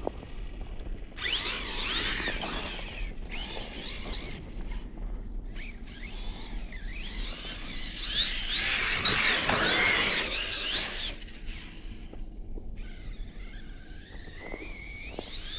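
Brushless motor of a 6S ARRMA Siren 1/10 RC truck whining as it is throttled up and down again and again, its pitch rising and falling as the wheels churn through deep snow. The whine is loudest a little past the middle. Near the end it holds a steadier note that slowly rises.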